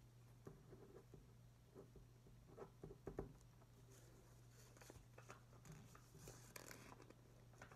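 Near silence: faint pen scratching and paper handling as a rent check is filled in, with a few soft clicks about three seconds in, over a low steady hum.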